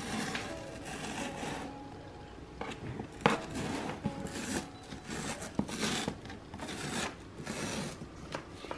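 Fingernails picking and scratching at the pull-tab tear strip of a cardboard shipping box, with irregular short scrapes and clicks as the strip is worked loose and peeled along the box edge.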